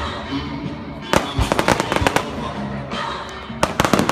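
Aerial fireworks exploding in quick runs of sharp bangs and crackles, one run about a second in and another near the end.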